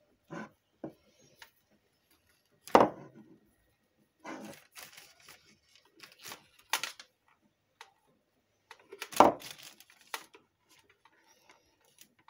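Handling noises from a plastic countertop blender and its power cable as the cable is fitted: irregular clicks, scrapes and knocks. The loudest knocks come about three seconds in and again about nine seconds in.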